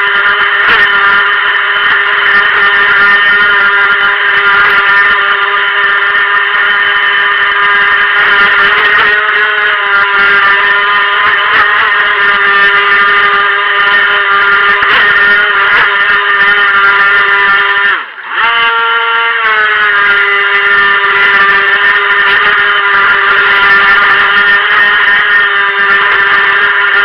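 Brushed electric motor of a Helion Rivos RC monohull boat running at a steady high throttle, a loud, steady whine with many overtones. About eighteen seconds in it cuts out for a moment, then spins back up.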